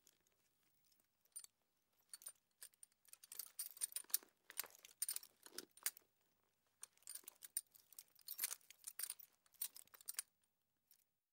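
Horse chewing on its bit, with the bridle's metal fittings jingling and clinking in two bouts of rapid small clicks, a short pause between them about six seconds in, stopping shortly before the end.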